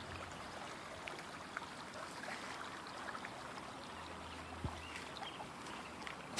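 Floodwater running steadily, a faint even rushing with a few small ticks over it.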